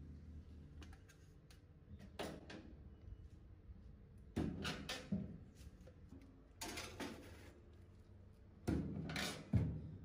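Metal baking tray handled and put into a countertop toaster oven, the oven's glass door opened and shut: several bouts of clattering and knocking, ending with a heavy thud near the end.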